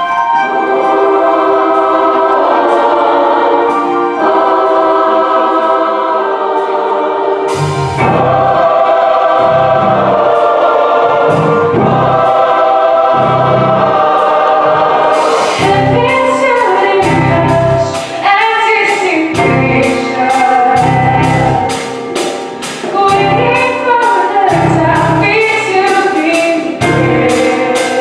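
Choir and orchestra music, starting with held chords. About eight seconds in, a steady low beat comes in. From about halfway, a quick ticking rhythm and a sung melody line join it.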